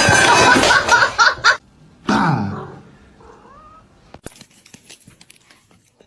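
Cat meowing loudly: a long wavering call for the first second and a half, then a shorter falling call about two seconds in, followed by faint light taps.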